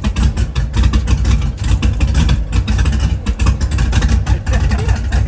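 Cammed LS V8 engine in a G-body Monte Carlo SS idling, its exhaust pulsing rapidly and unevenly.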